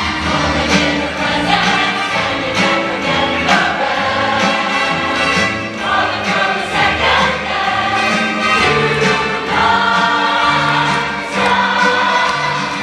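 Large choir and ensemble cast singing a Broadway musical number in chorus, heard from the audience in the theatre.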